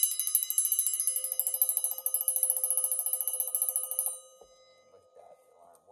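Westclox Loud Alarm wind-up alarm clock's bell ringing in rapid hammer strikes, cut off abruptly about four seconds in. It rings although the alarm is set for one o'clock and the clock shows 9:05, so the alarm setting is wrong.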